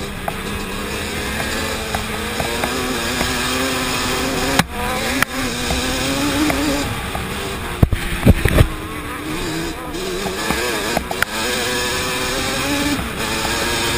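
Yamaha Banshee 350's twin-cylinder two-stroke engine running under load, its pitch rising and falling as the throttle is worked, with a few sharp knocks and a cluster of heavy thumps about eight seconds in.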